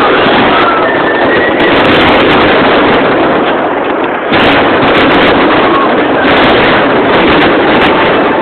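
A crowd and fireworks going off, heard as one loud, continuous, overloaded din close to full scale. It drops briefly about four seconds in and comes straight back.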